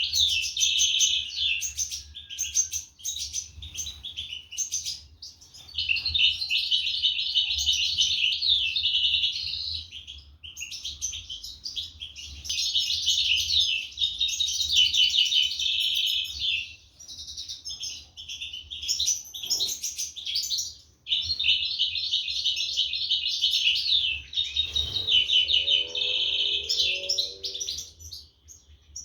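European goldfinches twittering: long bouts of rapid, high chirps broken by short pauses, the sound of goldfinch chicks begging while the parents feed them.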